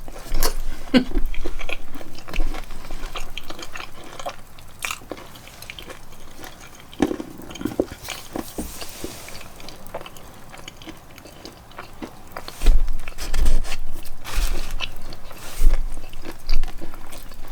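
Close-miked eating of a corn dog and French fries: irregular biting, crunching and chewing. Louder in the first couple of seconds and again over the last five, softer in between.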